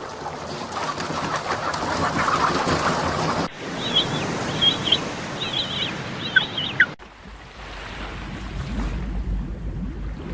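A steady rushing noise like surf, with a bird calling in short repeated chirps from about three and a half to seven seconds in. After that the sound cuts to a quieter, low rumbling noise.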